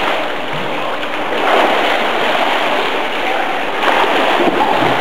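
Pool water splashing and churning: a steady, noisy wash.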